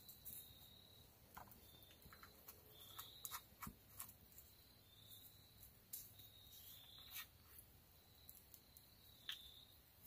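Near silence: a wood fire in a stone fireplace crackling faintly now and then, with a faint high tone that comes and goes.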